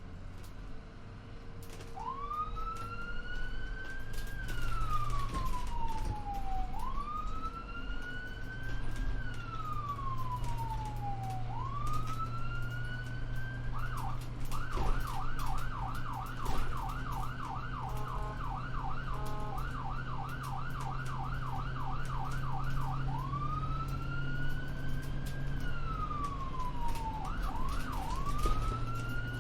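Ambulance siren on the move: a slow wail rising and falling about every four and a half seconds, switching midway to a fast yelp of about three sweeps a second for several seconds, then back to the wail with two quick yelps near the end. A steady low vehicle hum runs beneath.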